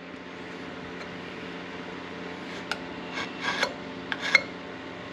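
A steady low hum with a few light clicks and clinks of metal being handled about halfway through and again near the end, likely the aluminum bracket and file being set down after deburring.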